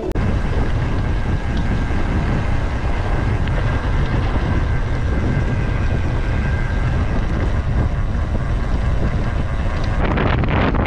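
Wind buffeting the microphone of a camera carried on a moving mountain bike, a loud steady rumble with the bike's rattle over the trail, turning rougher with many small knocks near the end.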